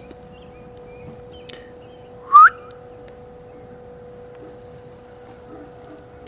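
Bird calling: a loud, short upward-sliding whistled note about two seconds in, then a fainter, much higher upward-slurred chirp about a second later.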